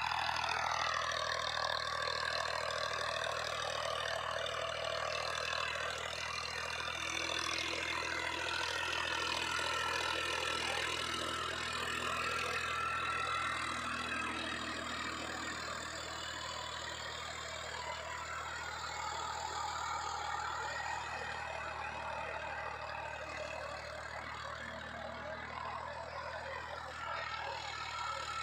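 Farmtrac 60 tractor's diesel engine running steadily as the tractor works across the field, fading slightly as it draws away.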